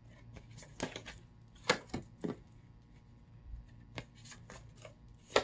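Tarot cards being handled: a scatter of short, irregular clicks and snaps as cards are shuffled and drawn from the deck.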